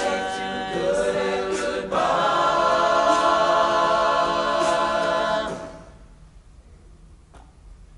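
All-male a cappella group singing in close harmony. About two seconds in they move to a fuller held chord, then cut off together about two-thirds of the way through, leaving a quiet hall with one faint click.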